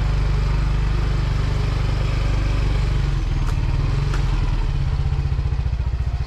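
Motorbike engine running at low speed, a steady low rumble, with two faint clicks in the middle.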